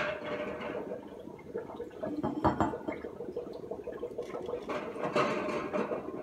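Beer running from a siphon tube through a bottling wand into glass beer bottles, with light glass clinks and one sharp clink partway through as the wand is worked between bottles.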